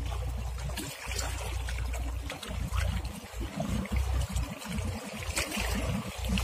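Choppy harbour water lapping and splashing, with wind buffeting the microphone in irregular low gusts.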